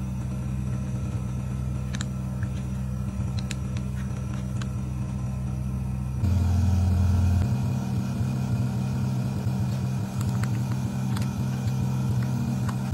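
Steady low motor hum from the screen separator machine's vacuum pump, with a few light clicks as its knobs and fittings are handled. About six seconds in the hum steps up, with a louder low drone for about a second.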